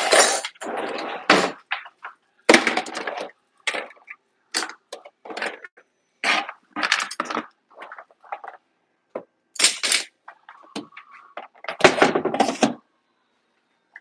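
Metal cutlery and measuring cups clinking and clattering as they are dropped and sorted into a kitchen drawer, in an irregular series of sharp clacks.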